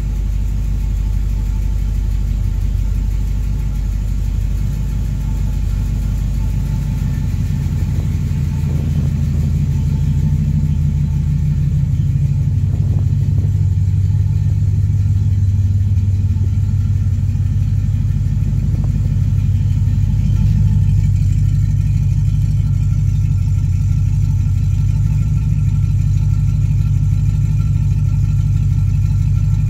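A 1965 Ford Mustang's 289 small-block V8 on a Fitech Go Street EFI idling steadily, warming up after a cold start. Its sound gets deeper and fuller about twelve seconds in. It carries a ticking from the left bank, which the owner traced to a loose rocker arm.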